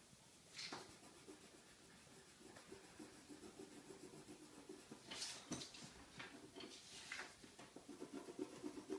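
Pencil scratching on paper in quick back-and-forth strokes, colouring in an area black. A few louder scratchy strokes stand out under a second in and again around five and seven seconds in.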